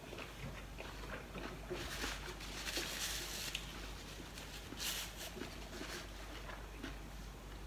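Close-miked eating sounds of a man eating rice and steamed vegetables with his fingers: chewing and small mouth and hand noises. There are louder noisy bursts around two to three seconds in and again at about five seconds.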